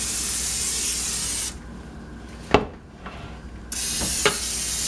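Aerosol cooking spray hissing into a slow cooker's stoneware insert in two long bursts, with a pause between them. In the pause comes a single sharp knock, the loudest sound here.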